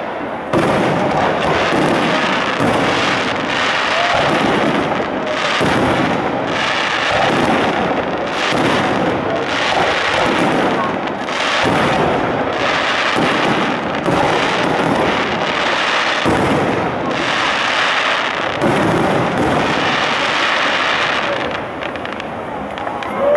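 Fireworks display: aerial shells bursting one after another in a dense barrage of overlapping booms, thinning a little near the end.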